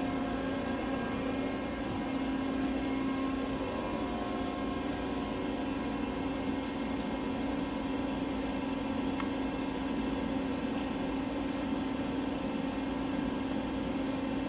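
Steady machinery hum: a continuous drone with one strong low tone and fainter steady tones above it, unchanging throughout.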